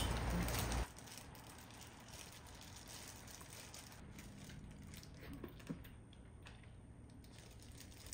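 A louder noisy stretch cuts off suddenly about a second in, leaving near silence: faint room tone with a few soft clicks.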